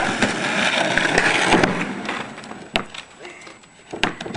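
Skateboard wheels rolling over asphalt in a steady gritty rumble that fades out after about a second and a half. Then come two sharp clacks of a skateboard striking, the second near the end as a skater gets onto a plywood plank ramp.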